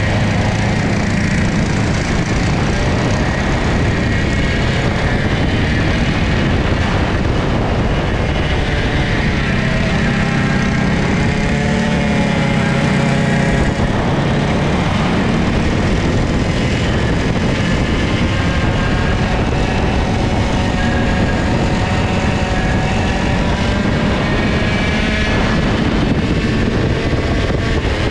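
A racing kart's old IAME two-stroke engine, heard from onboard at racing speed: its pitch climbs steadily for several seconds down the straights, then drops back as the driver lifts for the corners, over a constant rush of noise.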